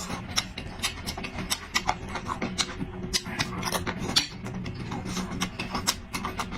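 Close-up mouth sounds of someone eating: chewing and lip-smacking, heard as many irregular sharp clicks over a steady low hum.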